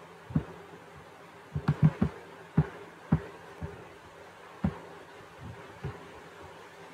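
About a dozen soft low thumps close to the microphone at irregular intervals, several in a quick cluster a bit under two seconds in, from mouse clicks and handling at the computer desk. A faint steady electrical hum lies under them.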